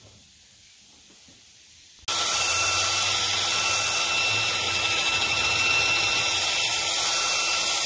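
After about two seconds of quiet, a cordless drill spinning a wire wheel starts abruptly and runs steadily with a thin whine, scrubbing the damaged edge of a rusty steel tubing-bender die to clean it up.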